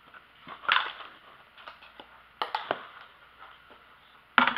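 A few scattered knocks and clunks of kitchen things being moved and set down on a countertop: one about a second in, a small cluster about halfway through, and the loudest near the end.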